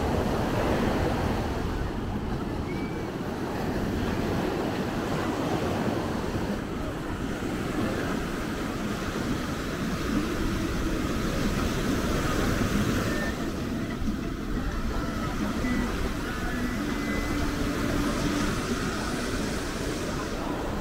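Ocean surf washing onto a beach, a steady wash of noise, with wind rumbling on the microphone.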